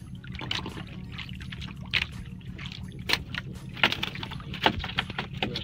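Choppy sea water lapping and slapping against the side of a small wooden outrigger fishing boat, over a steady low rumble. A few sharp knocks come about two, three, four and nearly five seconds in.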